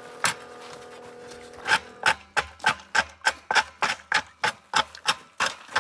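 A quick, even run of sharp knocks, about three a second, beginning a little under two seconds in. Before the knocks there is a steady hum with a few steady tones, which stops as they begin.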